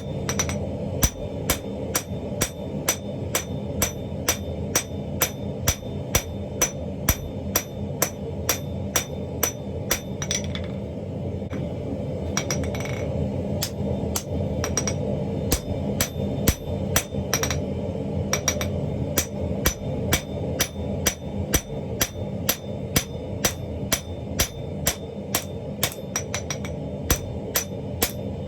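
Hammer blows on hot steel at the anvil, forging a welded chain Damascus billet, struck steadily about three times a second with a short pause partway through. A steady low rumble runs underneath.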